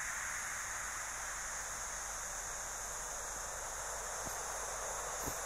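Steady outdoor wind hiss with no pitch, with two faint ticks near the end.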